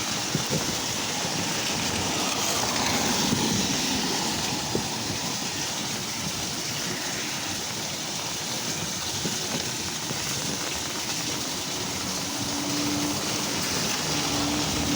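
Steady rain and water running off into a cleared drain: a continuous rushing hiss, with a faint steady hum joining near the end.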